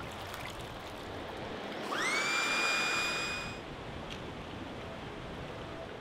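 Small battery-powered FLEXTAIL Max Pump 2 air pump whirring up about two seconds in, its whine rising quickly to a steady high pitch with a rush of air, then stopping after about a second and a half. Behind it, a steady rush of river water.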